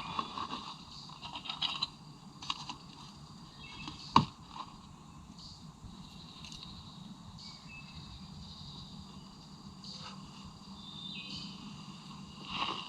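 A single sharp crack of a slingshot shot about four seconds in, over a quiet outdoor background.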